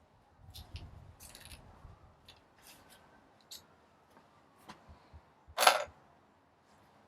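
Scattered small clicks and clacks of a cordless drill and its bit being handled, with one louder clack a little past five seconds in.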